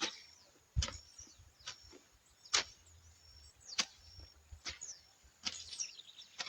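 A hoe chopping into soft soil and weeds in steady, sharp strokes, about one a second.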